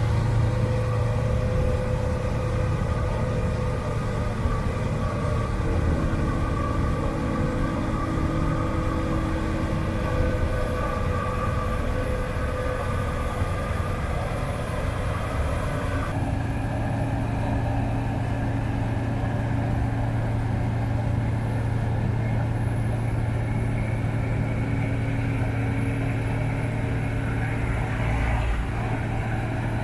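Claas combine harvester's diesel engine running steadily under load, a constant low drone. The sound changes abruptly about halfway through.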